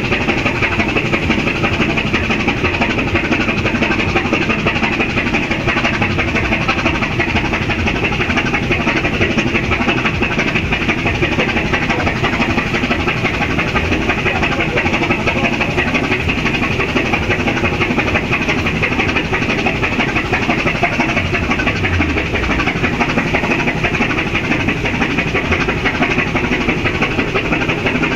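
Ship's diesel engine running steadily during undocking, a constant drone with many steady tones.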